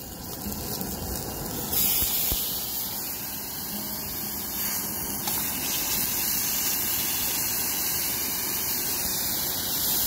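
Pork sizzling, first on a grill grate and then with sliced onions in a frying pan over a camping gas stove: a steady, dense sizzle that turns louder and brighter about two seconds in.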